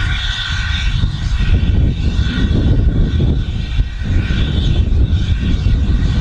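Steady hiss and low rumble from a standing steam locomotive, BR Standard Britannia Class 4-6-2 no. 70000 'Britannia', in steam.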